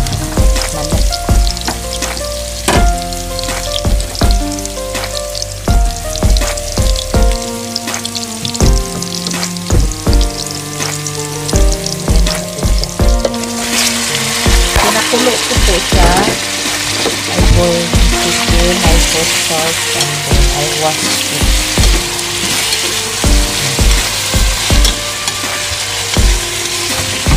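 Onions frying in hot oil in a pot, sizzling and being stirred. About halfway through the sizzle suddenly grows much louder and fuller as chicken pieces go into the hot oil. Background music with a steady beat plays throughout.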